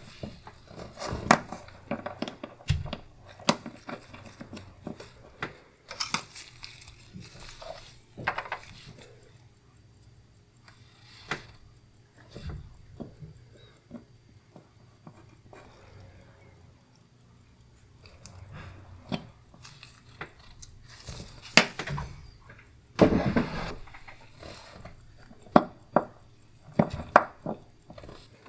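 Irregular small clicks, taps and rustles of gloved hands and steel tweezers handling a pocket watch movement in a metal movement holder, with the loudest clicks bunched near the end.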